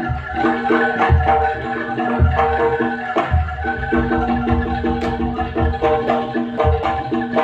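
Live gamelan music for a jaranan dance: metallophones play quick repeating pitched notes over deep drum beats that come about every second or two.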